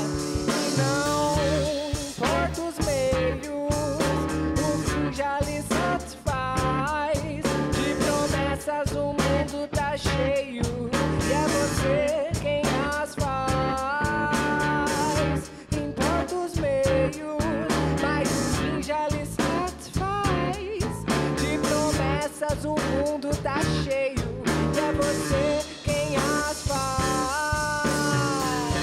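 Live band playing a song: electric guitar, bass guitar and drum kit, with a pitched lead line that bends and glides over the steady beat.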